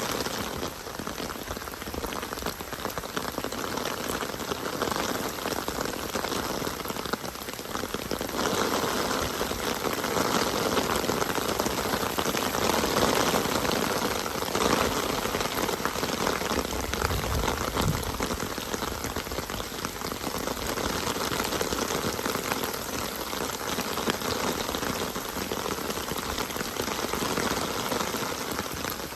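Steady rain falling, growing heavier about a quarter of the way in and easing again past the middle, with a brief low rumble a little over halfway through.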